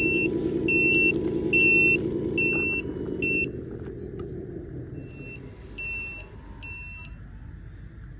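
Electronic sound unit of a 1/14-scale Tamiya Mercedes RC dump truck playing a diesel engine sound and a reversing warning beeper that sounds about every 0.7 seconds. The engine sound fades after about three seconds, and the beeping stops briefly midway, then resumes for a few beeps.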